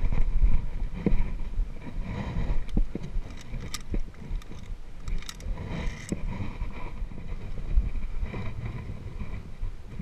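Wind buffeting the camera microphone as a low uneven rumble, with scattered metallic clicks and clinks of via ferrata carabiners and gloved hands moving along the steel safety cable.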